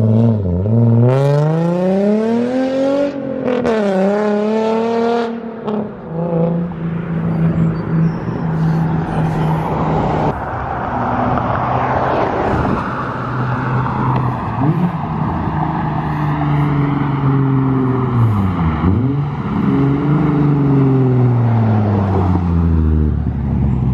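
Infiniti G37 sedan's 3.7-litre V6 with a straight-through, non-resonator single-exit exhaust, accelerating hard and climbing in pitch, with sharp drops at the gear changes. Between the pulls the engine note holds steady under wind and road noise.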